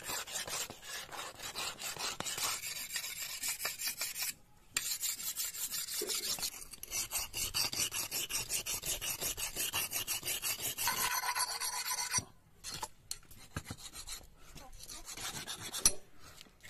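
A steel chopping blade being sharpened on a wet sharpening stone: quick back-and-forth scraping strokes, about three or four a second, with a brief break about four seconds in. The strokes stop about twelve seconds in, followed by a few light knocks and one sharper knock near the end.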